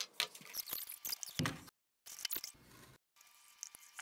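A clear plastic bottle and paper being handled: crinkling rustles and small sharp plastic clicks. The sound cuts off abruptly twice, with a brief moment of total silence each time.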